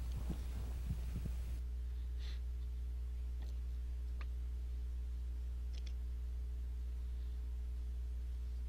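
A steady low hum runs throughout, with a few faint clicks. In the first second and a half, a loping horse's hoofbeats thud dully in the arena dirt before the outdoor sound cuts out.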